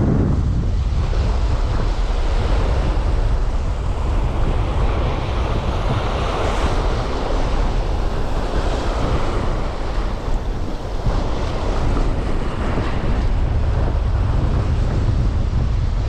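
Strong storm wind buffeting the microphone: a steady low rumble with a rushing hiss over it.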